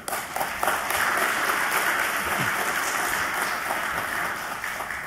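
Audience applauding, swelling within the first second, holding steady, then tapering off near the end.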